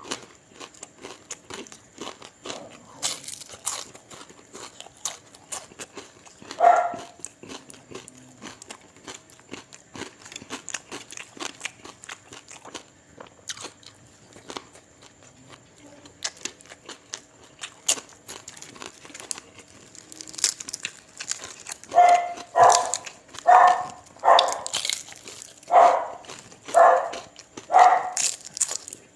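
Close-up eating sounds: crunching and chewing with many small clicks, typical of biting into crispy fried dried fish. A dog barks once about 7 s in, then barks repeatedly about once a second near the end.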